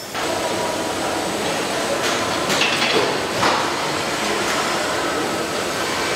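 Steady machinery noise of a truck assembly line, with a few sharp metallic clinks and knocks from tools and parts about two to three and a half seconds in.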